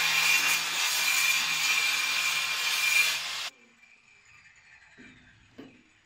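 Loud, steady cutting noise of a power tool with a thin high whine, stopping abruptly about three and a half seconds in; faint quiet after.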